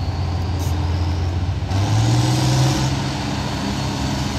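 Turbocharged engine of an International Farmall 560 tractor running steadily, then revving up sharply about two seconds in and holding at a higher, louder pitch as it opens up against the pulling sled.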